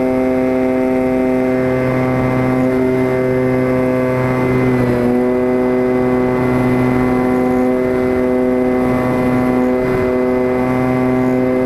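E-flite Apprentice RC plane's electric motor and propeller whining steadily in flight, heard close up from on board the airframe, with a brief slight dip in pitch about five seconds in.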